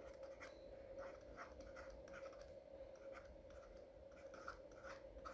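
Faint scratching and light taps of a stylus writing on a tablet, over a faint steady hum.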